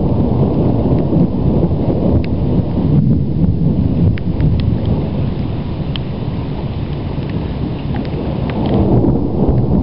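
Low rumbling thunder rolling on steadily with no sharp clap, easing slightly past the middle and building again near the end, with a few faint ticks over it.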